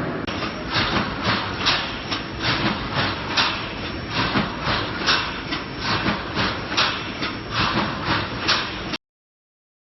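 Automatic reinforcing mesh welding machine running, with sharp rhythmic strokes about two or three times a second over a steady mechanical noise, stopping abruptly about nine seconds in.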